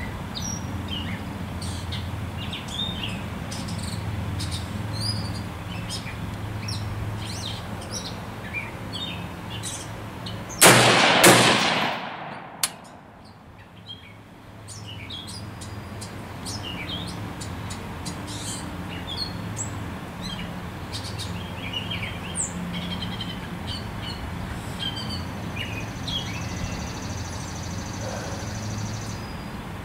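Birds chirping, broken about eleven seconds in by two loud reports less than a second apart from a DPMS Oracle AR-15 firing 55-grain full metal jacket .223 rounds.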